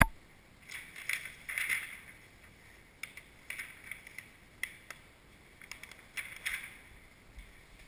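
A sheet of clear bra paint-protection film on its paper backing rustling and crinkling as it is picked up and handled, in several short bursts.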